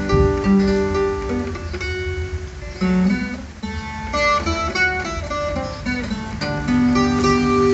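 Ten-string viola caipira played solo: an instrumental passage of picked melody notes and chords on its paired steel strings, with no voice.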